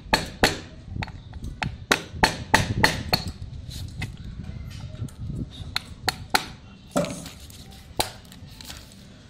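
Sharp metal taps of a tool striking a small screwdriver wedged into the seam of a screwless plastic laptop power adapter case, to split the case open. A quick, irregular run of knocks, thickest in the first three seconds, then sparser.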